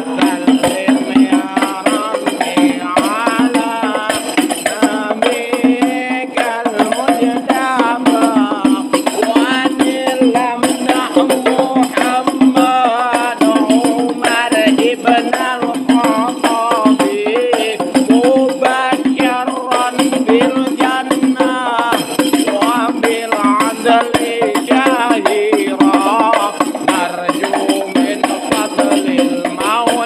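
Sholawat (qasidah) song: a wavering, ornamented singing voice over a steady beat of hand percussion.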